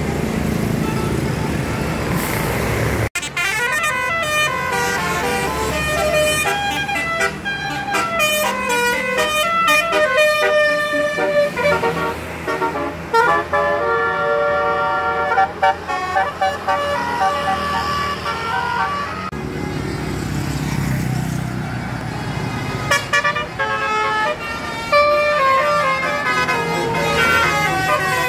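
Road rumble of a bus engine, then from about three seconds in a tour bus's telolet horn, a multi-tone musical air horn, plays quick runs of stepping notes and longer held chords. It eases off for a few seconds past the middle and starts up again near the end.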